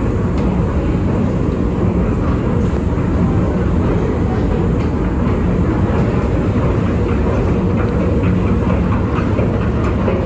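Loud, steady rumbling din of a subway station, a train running, heard while riding an escalator.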